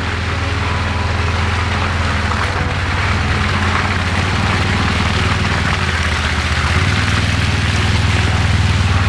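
Side-by-side UTV engine running steadily on the move, with a rush of wind and ground noise over the engine hum, growing slightly louder.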